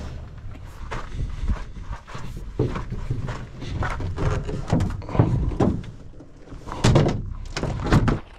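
A series of irregular thuds and knocks over a low rumble, the heaviest few near the end.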